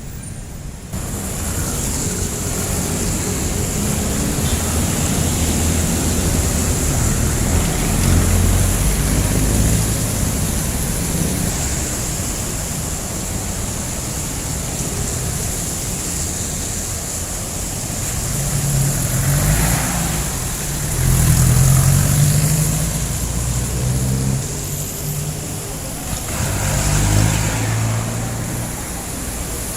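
Jeepneys' diesel engines running and passing in busy street traffic, a continuous low engine drone with road noise that swells as vehicles go by, loudest about 8, 21 and 27 seconds in.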